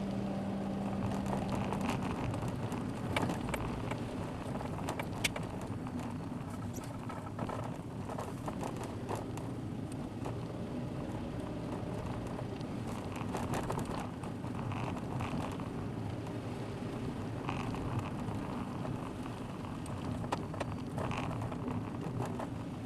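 A car driving, heard from a dashcam: steady road and tyre noise with scattered small clicks and crackles. A steady low engine tone fades out about two seconds in.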